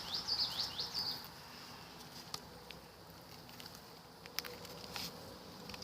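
A bird chirping rapidly in a quick series for about a second, then a faint quiet outdoor background broken by a few sharp clicks.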